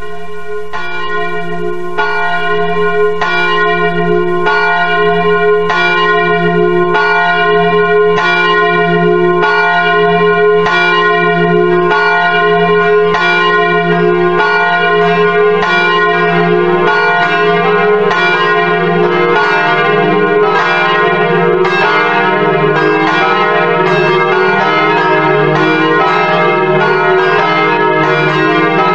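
Church bells ringing, fading in over the first couple of seconds, then a steady run of strikes about one a second that grows busier as more strikes overlap toward the end.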